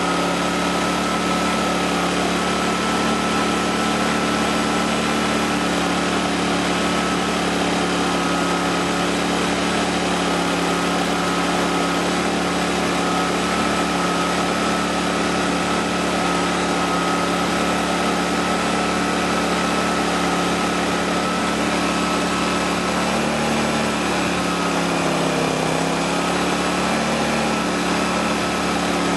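Fuji Micro 5200i generator's small petrol engine running steadily. About three-quarters of the way through, its speed sags and then recovers. The owner suspects the engine's stalling under load comes from a blocked carburettor jet.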